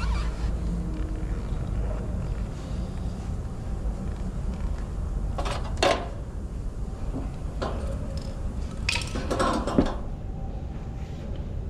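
Metal tools and parts clinking and clattering in two short bursts, about halfway through and again near the end, over a steady low hum.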